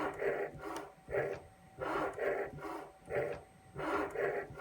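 CNC cutter making repeated strokes across a flat flex cable, scraping away the plastic coating over the copper conductors. It goes in a steady rhythm, a pair of scraping passes about once a second.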